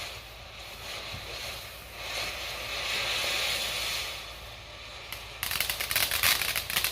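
A ground fountain firework spraying sparks with a steady hiss that swells and fades, then a burst of dense rapid crackling starts suddenly about five and a half seconds in.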